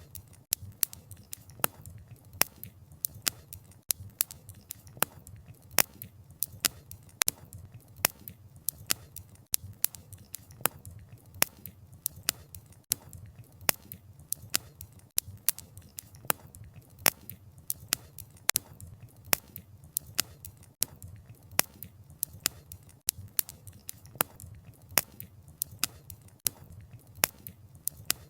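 Wood fire crackling: irregular sharp pops and snaps of burning logs, several a second, over a soft steady low rush of the flames.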